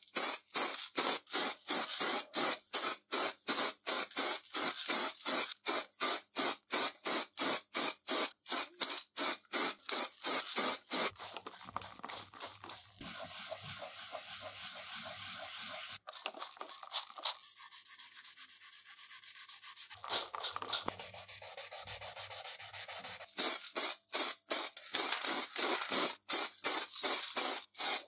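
Hand sanding of primed lamp panels: rhythmic back-and-forth rubbing strokes, about three a second. In the middle the strokes give way to several seconds of steady hiss before the rhythmic strokes resume.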